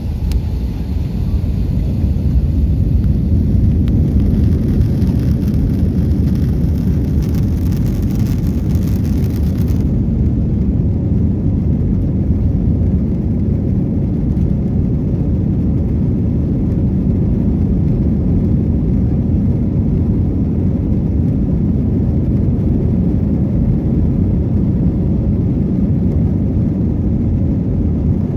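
Cabin noise inside an Airbus A321 rolling on the ground, heard from a seat over the wing: a steady jet-engine whir over a low rumble, growing louder in the first couple of seconds. A faint high hiss cuts off about ten seconds in.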